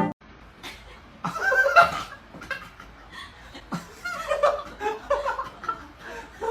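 A person laughing and chuckling in short, broken bursts, starting about a second in.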